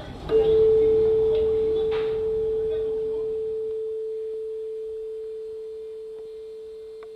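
A single metal strike that rings on as one clear, pure tone, fading slowly over several seconds.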